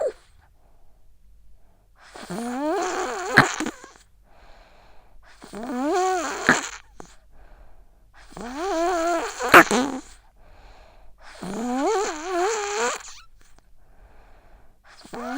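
A sick child snoring in her sleep: four long, high-pitched snores with a wavering pitch, about three seconds apart, some with a sharp click in them, and a fifth starting near the end.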